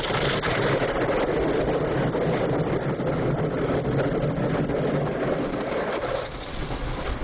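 Automatic car wash working over the car, heard from inside the cabin: a loud, steady rush of water spray and machinery against the body and windows. It eases off a little about six seconds in.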